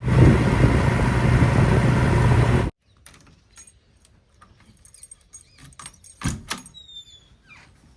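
Loud, steady engine-like rumble that cuts off abruptly after about two and a half seconds, then faint scattered knocks and clicks.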